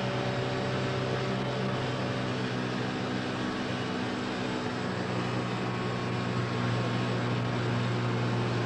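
Cosworth 1.5-litre twin-turbo V6 Formula One engine running on the test-bed dynamometer, a loud, even drone that holds one steady pitch. The engine, fired by its engine-management computer, now runs cleanly.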